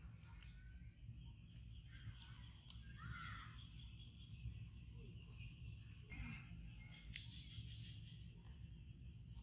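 Faint outdoor ambience: a steady low rumble and a thin high hiss, with a few short, faint chirps and a few small clicks.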